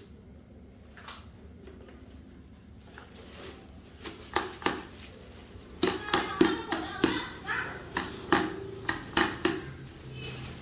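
Dry, broken eggshells crackling and clicking as a hand rummages in a plastic bag of them, with the bag crinkling. It is quiet at first; about four seconds in, a run of sharp crackles and clicks begins and lasts roughly five seconds.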